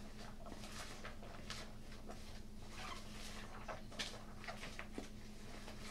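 Faint light clicks and rustles of a spoon and fingers working in a plastic bowl of chopped pico de gallo vegetables, over a low steady hum.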